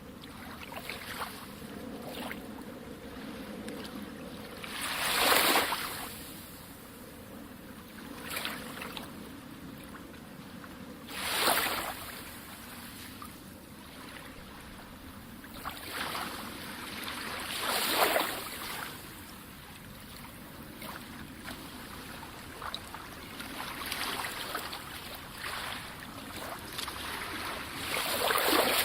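Sea waves washing in and breaking on the shore. Each wave swells up and falls back, with the biggest breaks about every six seconds and smaller washes between.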